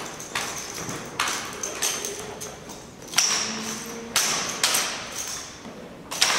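Drill rifles being slapped, caught and snapped into position during a two-person exhibition drill routine: about six sharp strikes at irregular intervals, each ringing briefly in a large gym hall.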